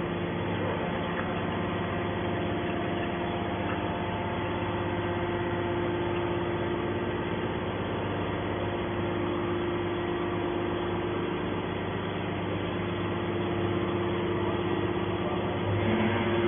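Hydraulic scrap-metal baler running: a steady machine hum with a constant tone, rising slightly in level near the end.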